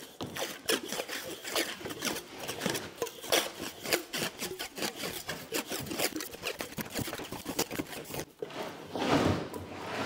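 Plastic wrap being pulled off its roll and wound around a glued-up stack of wood laminations: a rapid, uneven crackling, with a louder rustle near the end.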